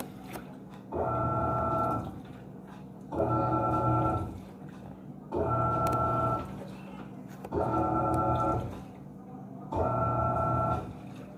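Panasonic 14 kg washing machine agitating a load: its motor whines for about a second, pauses about a second, then runs again, five times in a steady rhythm, over a constant low hum.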